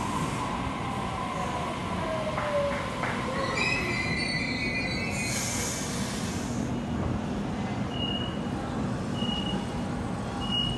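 Waratah double-deck electric train braking to a stop, its wheels and brakes squealing in gliding tones over a steady rumble, with a short hiss about five seconds in. From about eight seconds in, a short high beep repeats about every second and a half as the doors open.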